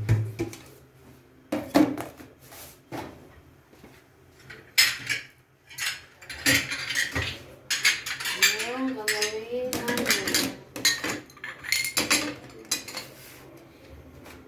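China plates and dishes clattering and clinking as they are picked up and set down on a serving tray, a string of sharp separate knocks.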